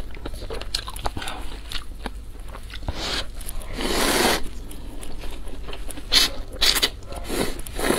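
Close-miked eating of instant cup noodles: a long slurp about four seconds in and several short slurps near the end, with wet chewing and small clicks between.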